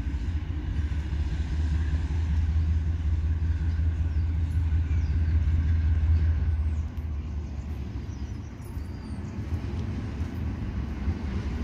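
Approaching DXR-class diesel-electric locomotive, its engine a low steady drone that drops quieter about seven seconds in.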